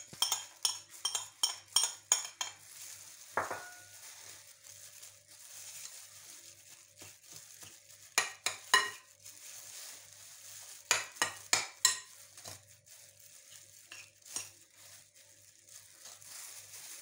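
Plastic plate knocking against a glass mixing bowl as chopped coriander is scraped into minced meat, a quick run of clicks and clinks in the first two seconds with a brief ring soon after; then a gloved hand mixing the minced meat in the glass bowl, with more clusters of clicks about eight and eleven seconds in.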